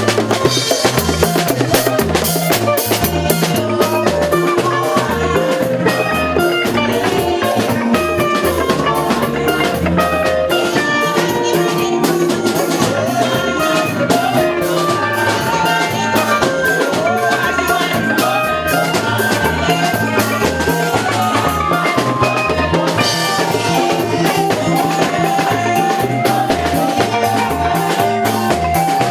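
Instrumental band music with a steady drum-kit beat and bass line, no singing.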